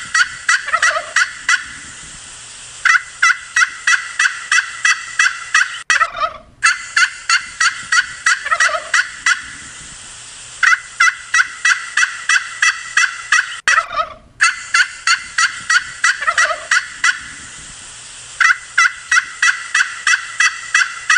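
Turkey toms gobbling: bouts of quick, evenly spaced notes, several runs in a row with short gaps between them. The same sequence of gobbles comes round again about every seven and a half seconds.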